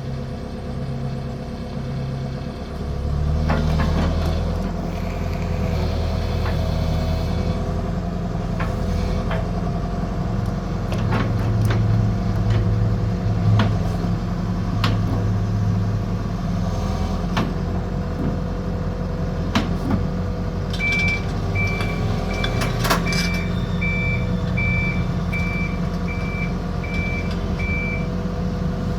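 Kobelco SK135SR excavator's diesel engine running, stepping up in speed and load a few seconds in as the machine works, with scattered sharp metallic clanks. Past the two-thirds mark a travel alarm beeps steadily, about three beeps every two seconds, for around seven seconds.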